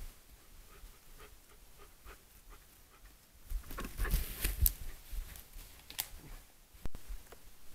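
Young brown bear moving close past the camera: soft steps and rustling in dry forest litter, with a cluster of louder scuffs and knocks about halfway through and a single sharp knock near the end.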